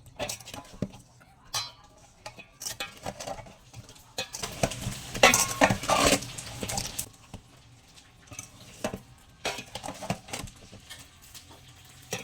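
Metal kitchen utensils clinking and scraping against a pan and dishes in a run of short knocks, with a louder, busier stretch of clatter a few seconds in.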